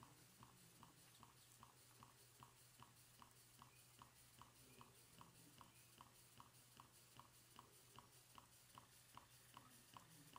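Twin-cylinder steam engine running at a slow, steady speed: a faint, even tick or puff about two and a half times a second.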